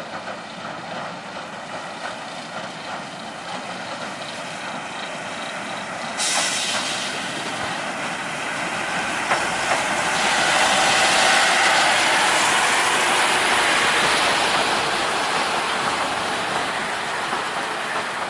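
Severn Lamb 3 ft gauge diesel locomotive and its carriages running past along the pier platform: a steady mix of engine and wheel-on-rail noise, growing louder to a peak as the locomotive draws level. A hiss comes in suddenly about six seconds in.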